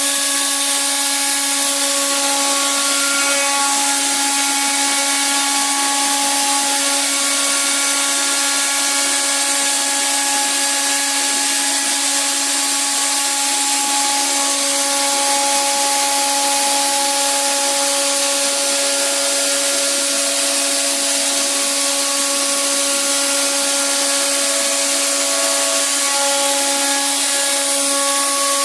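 Robot-mounted Arel milling spindle running at steady speed while machining, a constant whine with higher overtones over a continuous hiss of cutting.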